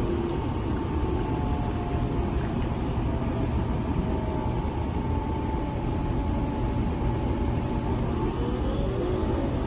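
Nespresso Vertuo Next brewing: a steady motor hum with a thin whine that slowly drifts down in pitch and glides up again near the end.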